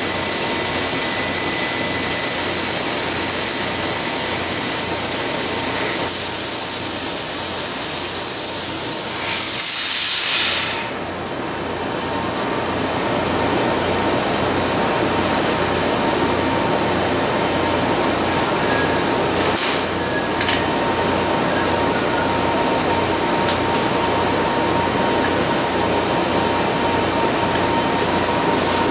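Kern 400-watt CO2 laser cutter cutting brass sheet: a loud steady hiss from the cutting head, which stops suddenly about ten seconds in as the cut finishes. The machine's steady hum carries on with a low pulsing about twice a second, and a couple of brief clicks come near twenty seconds in.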